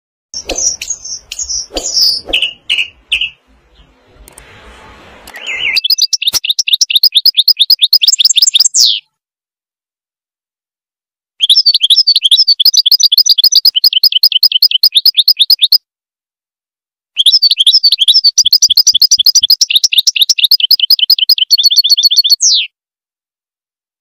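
A songbird singing. It gives a few varied chirps at first, then three long bouts of fast, evenly repeated high trilling notes, each several seconds long, with short pauses between them.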